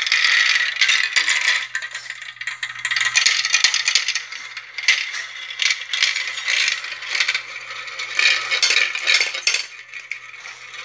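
Several small glass marbles rolling and clattering down a plastic marble run: a continuous rattle of many little clicks as they run through the chutes, spin around the funnels and drop into the catch tray.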